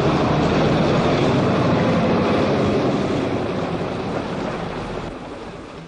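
Kenworth cabover semi-truck running at speed on an old film soundtrack: a loud, steady rush of engine and road noise that gradually fades over the last few seconds.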